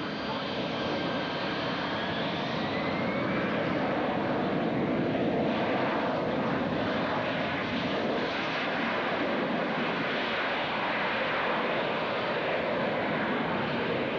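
AV-8B Harrier's Rolls-Royce Pegasus turbofan at takeoff power: a loud, steady jet noise through a short rolling takeoff and climb-out, with a faint rising whine in the first few seconds.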